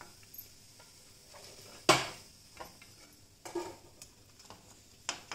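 Perforated steel ladle knocking and scraping against a kadai while fried puffed-rice fryums are lifted out of hot oil, over a faint sizzle of frying. The sharpest knock comes about two seconds in, with a few lighter ones later.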